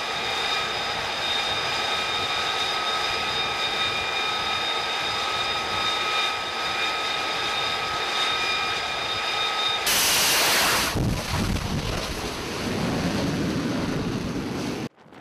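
F-35B jet engine running: a steady high-pitched turbine whine over a rushing noise, broken about ten seconds in by a brief, louder roar of jet blast, then a duller jet rumble that swells again before cutting off suddenly.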